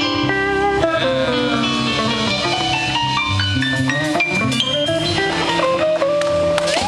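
Live blues band playing: an electric guitar lead with bending notes over electric bass, drums and keyboard.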